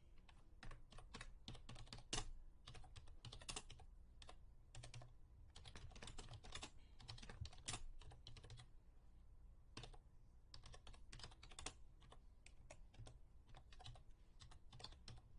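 Faint typing on a computer keyboard: irregular keystrokes in short runs with brief pauses between them.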